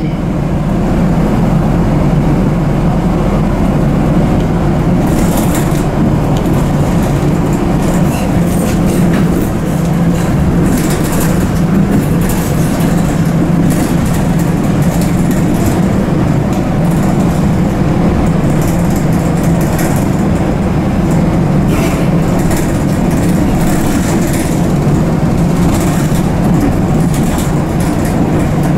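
Regional passenger train running, heard from inside the carriage: a steady low rumble of wheels and running gear, with scattered short clicks.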